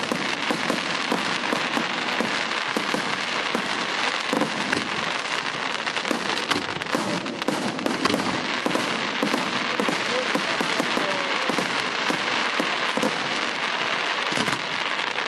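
Fireworks display: aerial shells bursting overhead in a steady, dense crackle of countless small pops.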